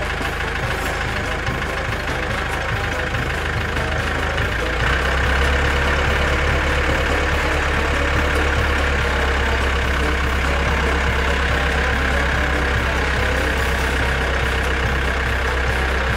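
A vehicle engine running steadily, getting louder about five seconds in and holding there.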